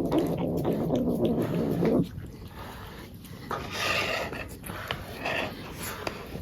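A cat making a drawn-out, low vocal noise for about two seconds while being brushed, followed by softer, rustly noises.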